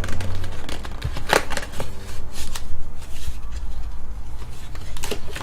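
Paper and card being handled: a few short rustles and scrapes as a photo and its packaging are pulled out and opened, over a steady low hum.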